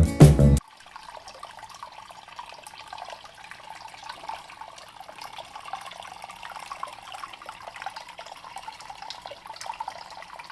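Water from a cemented bowl-style waterfall fountain falling and splashing steadily, with many small splashes and drips. Guitar music cuts off suddenly about half a second in.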